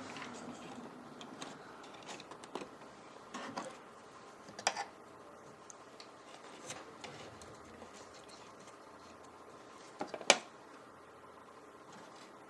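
Scattered light clicks and taps of small computer parts being handled while fitting an M.2 drive to a motherboard, the sharpest click about ten seconds in.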